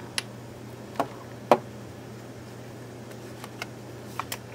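Sharp clicks and light taps as the partly disassembled plastic body of a Canon VIXIA HF G30 camcorder and a small precision screwdriver are handled and set down on a hard work surface. The loudest click comes about a second and a half in, with a few smaller ticks near the end, over a faint steady hum.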